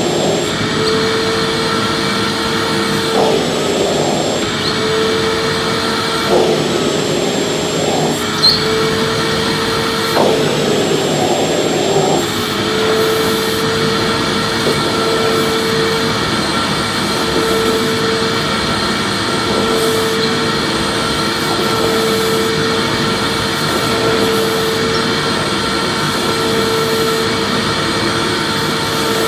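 Vacuum cleaner running steadily: a constant motor whine over a loud rushing hiss of air. It starts abruptly, and a few brief swells come in the first twelve seconds.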